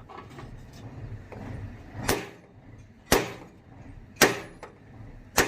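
Hammer blows, struck at a steady pace of about one a second, four in all.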